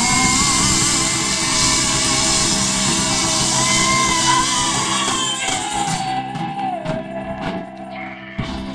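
Live rock band playing with sung vocals, electric guitar, bass, drum kit and a shaken tambourine. About six seconds in the full sound drops away, leaving a held sung note and separate drum and cymbal hits as the song ends.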